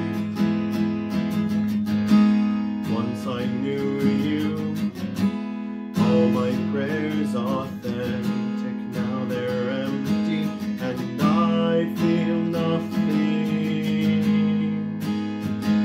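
Acoustic guitar strummed in steady chords, with a man's voice singing over it from about three seconds in.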